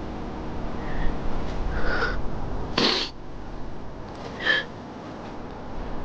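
Someone crying: a few short sniffling, catching breaths, the loudest just before three seconds in and another about four and a half seconds in, over a steady background hiss.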